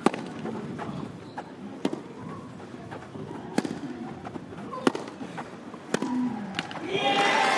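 Tennis rally: a ball struck back and forth with rackets, five sharp hits spaced about a second and a half apart over a low crowd murmur. Near the end, crowd applause breaks out and becomes the loudest sound.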